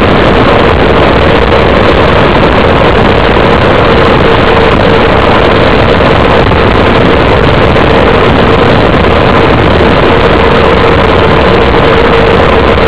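Loud, steady wind roar over the microphone of a bicycle-mounted camera on a fast downhill descent, with a steady hum running through it.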